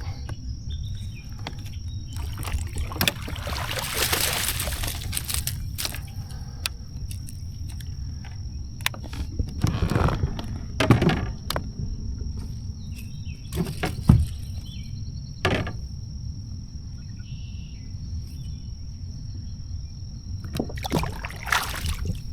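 Water splashing and knocks against a fishing kayak as a bass is landed and handled, with a few sharp knocks and a longer splashy stretch. A steady high-pitched insect drone and a low rumble run underneath.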